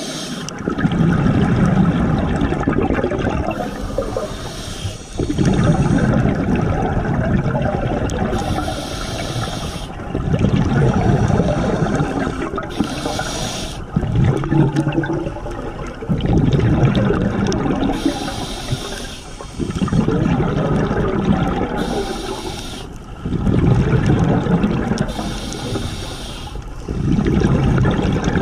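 Scuba diver breathing through a regulator underwater: a short hiss on each inhale, then a loud bubbling rush of exhaled air, repeating every few seconds.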